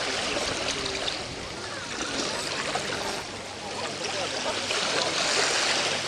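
Small sea waves lapping and washing onto a sandy shore, swelling and easing every couple of seconds, with faint distant voices.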